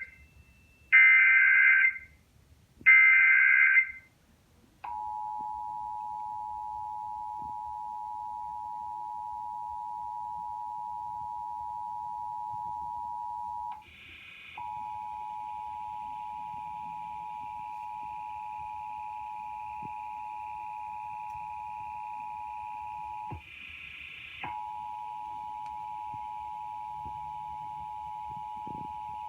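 Emergency Alert System SAME header data bursts: the end of one harsh, buzzy burst and two more a second apart. About five seconds in, the EAS two-tone attention signal (853 and 960 Hz together) starts, a steady dissonant tone held on. It breaks off briefly twice, each time with a short buzzy burst. This signals the start of a state EAS test.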